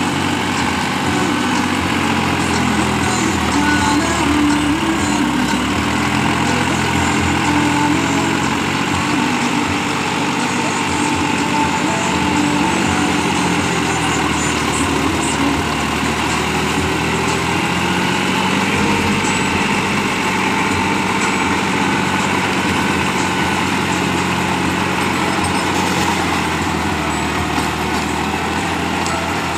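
New Holland 5510 tractor's diesel engine running steadily under load, with its rear-mounted rotavator churning through soil and banana plant debris.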